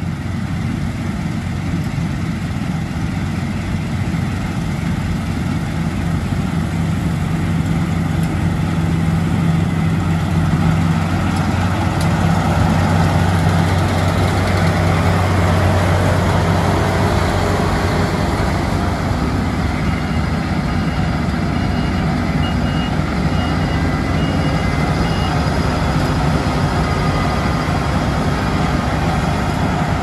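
Claas Lexion 8900 combine harvester working through barley: the steady drone of its big six-cylinder diesel with the rushing of the threshing and cutting gear. It grows louder as the machine passes close by, around the middle, then eases a little as it pulls away.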